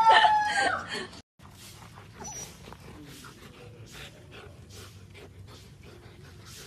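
A fluffy husky-type dog's long howl, one held note sliding slightly down, cut off sharply about a second in. Then faint scuffling and small mouth noises as two husky puppies play-fight.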